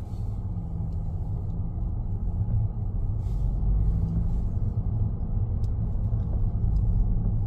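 Steady low rumble of a car driving along a road: engine and tyre noise, with most of the sound in the low range.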